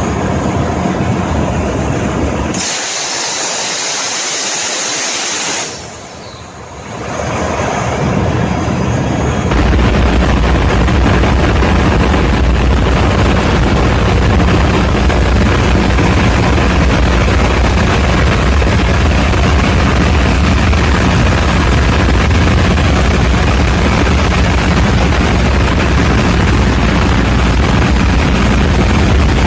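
Ship's diesel generator machinery, with a loud hiss lasting about three seconds a few seconds in. From about ten seconds in, a heavy, steady low rumble of the diesel generator running.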